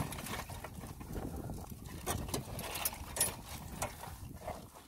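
Irregular clicking and clattering of crabs' hard shells and legs against the wire mesh of a crab pot as they are pulled out by hand.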